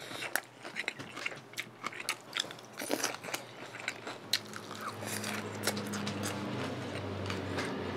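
Close-miked eating: forkfuls of chicken tender salad being bitten, crunched and chewed, with sharp clicks of a plastic fork in a plastic tray. A low steady hum sets in about halfway.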